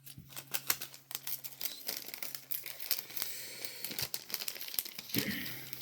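Foil booster pack wrapper crinkling and tearing open: a dense run of crackles and rips.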